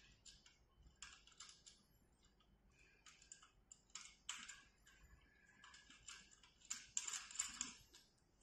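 Small metal bolt being threaded in by hand, with faint, irregular clicks and scrapes of metal on metal and a few louder clicks about seven seconds in.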